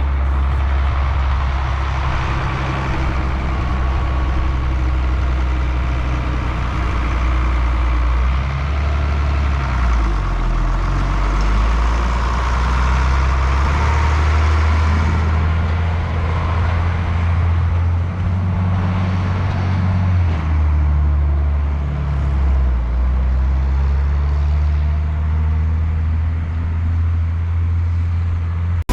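Heavy farm machinery engine running steadily under the hum and clatter of harvesting machinery. Its pitch wavers slightly in the middle as the load or speed changes.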